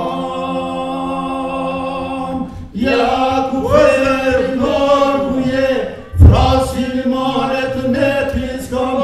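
Group of voices chanting together without accompaniment, holding one long note, then moving into a sung line, ending in a prayer whose closing word is "Amen". A single sharp thump about six seconds in.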